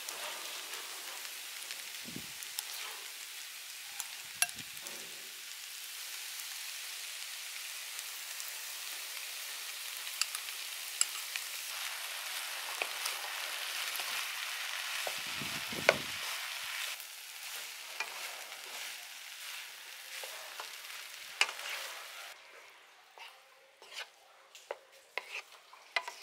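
Egg fried rice sizzling in a non-stick frying pan as it is stirred with a wooden spatula, with scattered sharp taps and scrapes of the spatula on the pan. The sizzle fades away near the end, leaving a few clicks.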